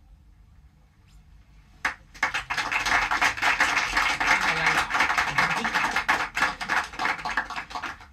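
A reel-to-reel tape deck's playback, with both reels still turning, gives a loud, dense crackling and scratching full of small clicks. It starts with a sharp crack about two seconds in and goes on unevenly until it stops abruptly.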